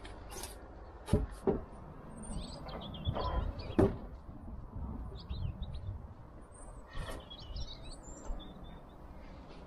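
Stripped roundwood poles knocking as they are set down on a slatted wooden bench: a few sharp knocks in the first four seconds, the loudest near four seconds in, and another near seven seconds. Small birds chirp in the background.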